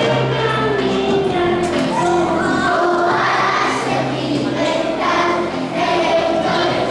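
Group singing: a woman and children singing a song together, melody moving from note to note over a steady low note.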